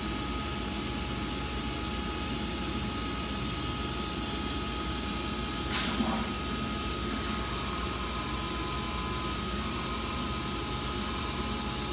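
MultiCam 3000 series CNC router homing its servo-driven axes: a steady machine hiss and hum with a faint high steady whine. There is a single click about six seconds in.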